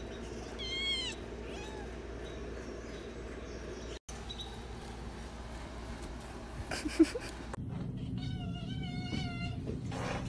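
Cat meowing: a short meow about half a second in, then a longer wavering cry near the end.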